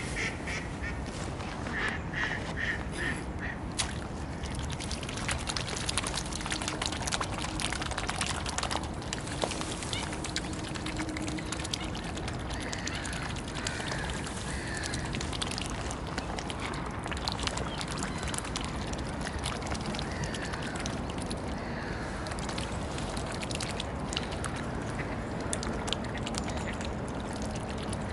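Mallards quacking in the first few seconds, then the rapid wet clicking and dabbling of mute swans' and mallards' bills taking floating feed pellets off the water surface.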